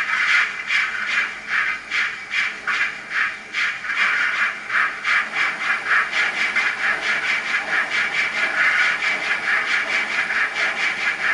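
Recorded GWR 57xx pannier tank steam exhaust beats played by a model locomotive's ESU LokSound V4 sound decoder. The chuffs with steam hiss start at about three a second and quicken until they run together into a continuous hiss as the engine picks up speed.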